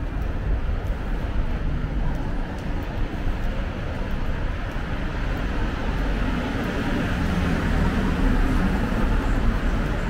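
Night city street ambience: a steady low traffic rumble, with a car driving past that grows louder over the second half.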